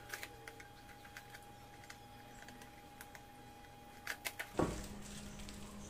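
Fingers picking at and peeling packing tape off a cardboard box: scattered small clicks and crackles, with a cluster of louder clicks about four seconds in. A sudden low thump follows soon after, and a low steady hum sets in.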